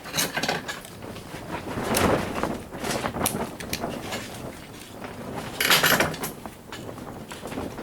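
Plastic and small metal parts of a surge protector being pried apart and handled: irregular scraping and clicking, with a louder scrape about six seconds in.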